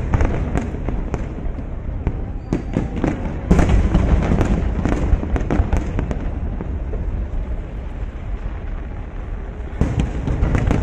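Aerial fireworks shells bursting in rapid succession, a continuous run of bangs that grows loudest about three and a half seconds in and again near the end.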